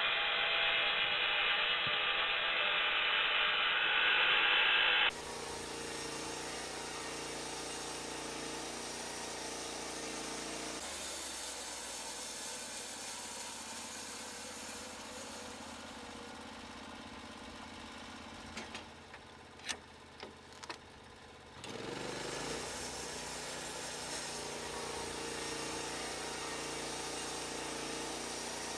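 Sawmill machinery running with a steady engine-like hum. The sound changes abruptly several times, loudest and noisiest in the first few seconds, and a few sharp knocks come about two-thirds of the way through.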